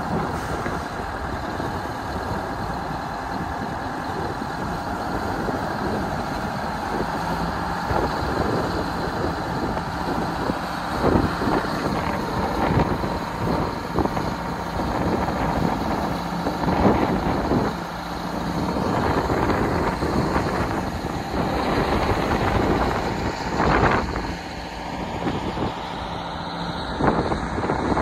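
Heavy diesel truck engine idling steadily, with wind buffeting the microphone.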